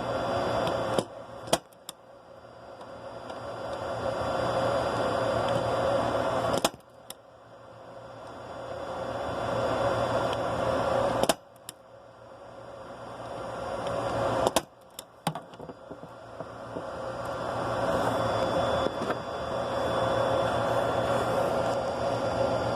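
Sharp clicks and snaps from hand work on a network patch panel, a few seconds apart, over a steady room noise that swells slowly between them.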